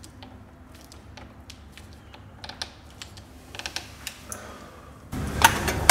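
Small, irregular clicks and ticks from a screwdriver turning in a plastic screw terminal as it tightens a thick cable. About five seconds in, a louder rustling noise with a sharp knock takes over.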